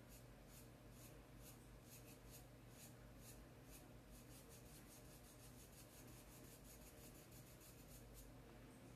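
Faint, rhythmic scratching of a paintbrush stroking paint onto coarse black sacking fabric, about two or three strokes a second.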